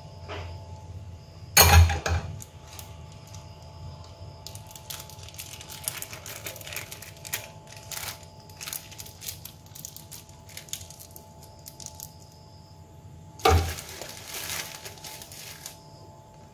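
Thin plastic bags crinkling and crackling as they are filled with mung bean ice cream mix and handled by hand. Two sharp clinks of kitchenware come through, one about two seconds in and one near the end.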